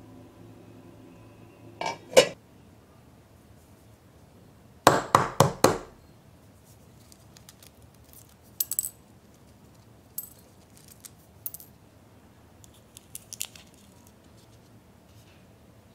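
A boiled egg's shell being cracked with a quick run of about five hard taps, then the light ticks and crackle of the shell being peeled off and pieces dropping into a glass bowl. Two sharp knocks come about two seconds in.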